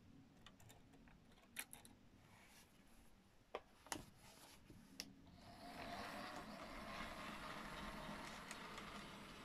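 A few sharp clicks, then from about five seconds in the faint, steady whir of an OO gauge model Class 06 diesel shunter's motor as it draws wagons away along the track.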